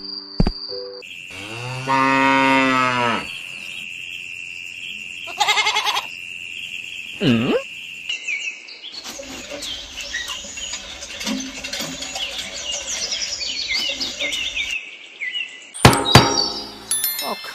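A cow moos once, a single long low call about a second in that lasts around two seconds.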